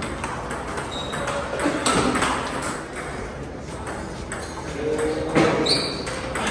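Table tennis rally: the celluloid-type ball clicking off paddles and the table again and again, with echo from a large hall and voices in the background.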